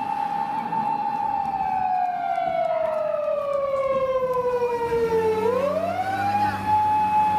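Japanese police patrol car siren wailing. A held tone slowly falls in pitch over about four seconds, then sweeps quickly back up and holds.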